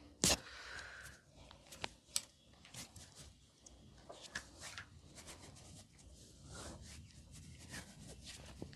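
Hands rubbing and kneading on hair and skin during a massage, with one sharp click just after the start and lighter clicks and taps scattered through.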